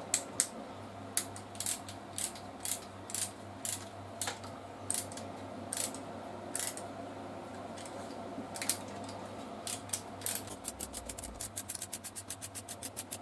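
Hand tap wrench clicking as it turns the final tap to cut an M6 thread into a drilled hole: single clicks roughly every half second with a few pauses, then a fast even run of clicks, about six a second, near the end.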